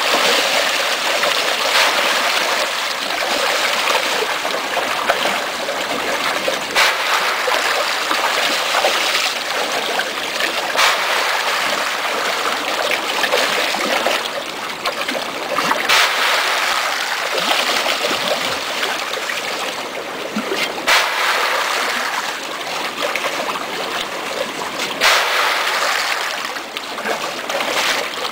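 Rainbow trout thrashing at the water surface in a feeding frenzy: continuous splashing and churning, with sharper individual splashes every few seconds.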